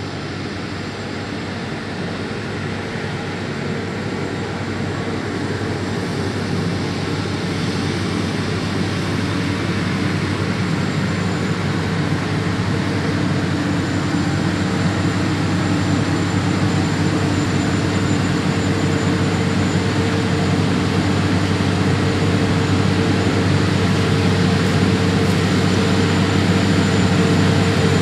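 Claas Lexion 570 TerraTrac combine harvester running steadily while harvesting rice, with a thin high whine above the engine and threshing noise. It grows steadily louder throughout.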